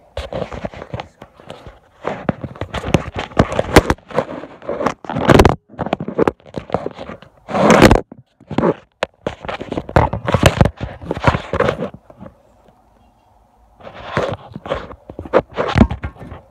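Handling noise of a phone: irregular scraping, rubbing and knocking as it is moved around and propped against a box. There is a short lull about twelve seconds in.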